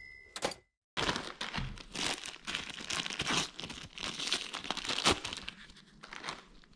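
Clear plastic parts bag crinkling and rustling as nitrile-gloved hands open it: a dense run of crackles starts about a second in and thins out near the end.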